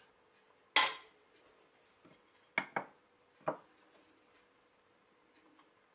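Kitchenware clinking and knocking: one sharp clink with a short ring about a second in, then a few lighter knocks between two and four seconds in.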